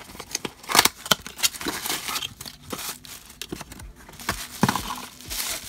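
A small cardboard blind box being pulled open by hand and a tissue-paper-wrapped figure taken out: irregular tearing, rustling and light tapping of cardboard and paper.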